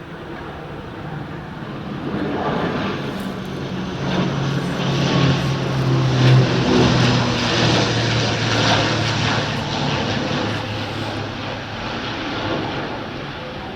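Twin-turboprop engines and propellers of a CASA C295 on its landing approach. The sound swells as the aircraft passes, loudest about six seconds in, and the propeller tone drops slightly in pitch as it goes by.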